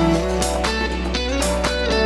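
Background music: held pitched notes over a low sustained bass, with a steady beat of about two a second.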